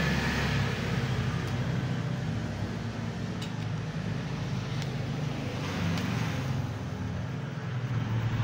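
Steady low background rumble with a low hum, and a few faint light clicks.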